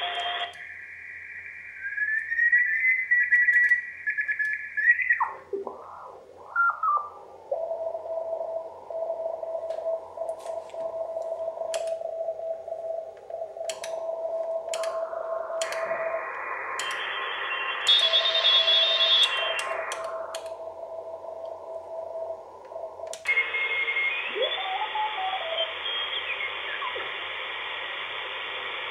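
AEG Telefunken E800/2 shortwave receiver's loudspeaker playing band hiss while it is tuned across the 20-metre band: heterodyne whistles glide in pitch as signals pass through, and a beat tone keys on and off like Morse code. The hiss changes width several times, with clicks, as the receiver's filter bandwidth is switched.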